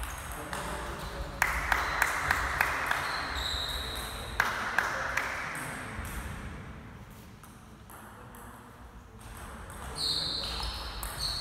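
Table tennis ball clicking off bats and table during rallies, a run of quick hits about a third of a second apart, amid a brief hiss of noise. Sports shoes squeak on the wooden gym floor, once in the middle and again near the end.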